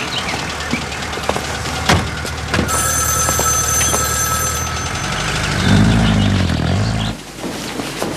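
Street traffic with a motor vehicle's engine running, its pitch rising and falling for about two seconds near the end before cutting off abruptly. Two sharp knocks sound about two seconds in.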